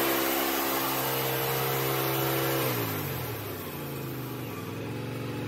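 Engine of a Wood-Mizer LX150 portable band sawmill running steadily, then a little under halfway through its pitch drops as it is throttled back, running on lower and less even.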